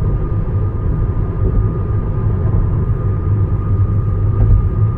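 Steady road and wind noise inside an electric Tesla cruising at highway speed in strong gusting wind, with a thin high whistle held steady over the low rumble.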